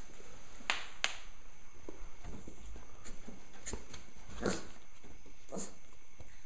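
Alapaha blue blood bulldog puppies, about four and a half weeks old, play-fighting, letting out a few short yips and squeaks.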